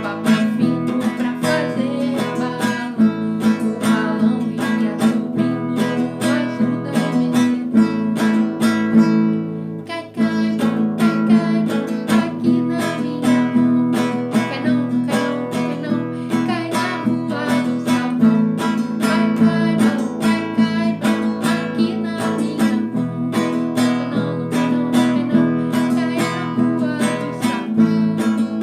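Acoustic guitar strummed in a steady rhythm, with a brief break in the strumming about ten seconds in.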